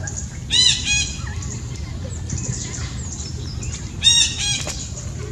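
Two short bursts of high-pitched animal calls, about half a second in and again about four seconds in. Each burst is a quick run of rising-then-falling notes.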